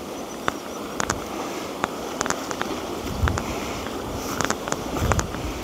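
Steady wind noise on the microphone, with scattered sharp crackles and clicks and a couple of low thumps.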